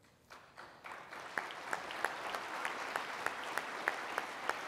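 Audience applause building from near silence about half a second in, with individual claps standing out about three times a second.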